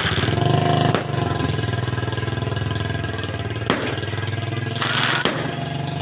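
A motor engine running steadily at idle, with a few sharp cracks about one second, three and a half seconds and five seconds in.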